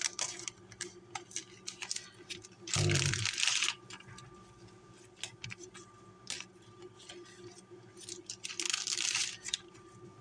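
Trading cards and plastic card sleeves being handled: light clicks and taps, with two longer rustling swishes, one about three seconds in and one near the end.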